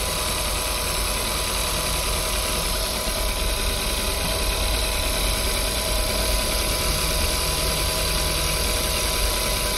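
Volkswagen Caddy petrol engine idling steadily, with no revving. It has a misfire on cylinder two and has just been restarted after its ignition leads were cleaned.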